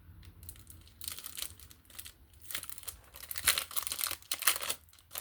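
Plastic packaging crinkling and rustling in hands as a small pack of nail stickers is opened. The crackling is irregular and most dense around the middle.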